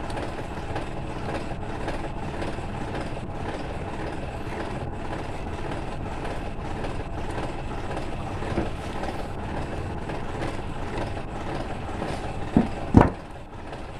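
Steady low rumbling background noise, like distant traffic or machinery, with faint handling clicks and two short knocks near the end, the second the loudest.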